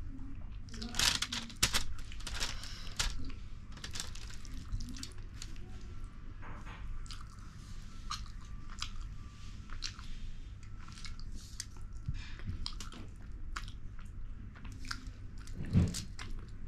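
Close-miked eating sounds: chewing with many irregular wet mouth clicks and smacks while eating fish curry and rice. A brief vocal murmur comes near the end.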